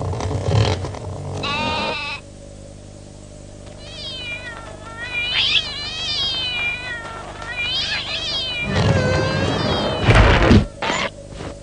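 Cartoon sound effects: a run of high, squeaky, meow-like calls that slide down in pitch, voicing the small cartoon creatures. Loud rushing noise comes at the start and again near the end, where a deep thud is the loudest moment.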